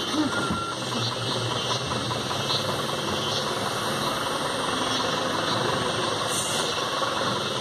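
A vehicle engine idling steadily, from the safari vehicle the tiger is being watched from.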